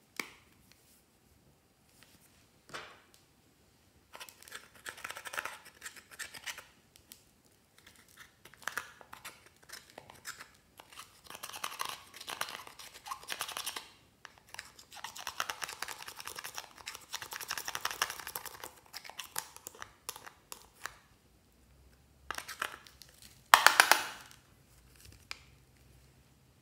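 A metal spatula scraping and crumbling pressed eyeshadow powder out of a plastic palette, in repeated scratchy bouts. A sharp click comes right at the start, and a short, louder burst of scraping comes near the end.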